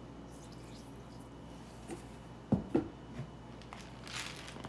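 Light knocks and clicks from kitchen items being handled, two sharp knocks in quick succession about halfway through, then a brief hiss and another knock near the end, over a faint steady hum.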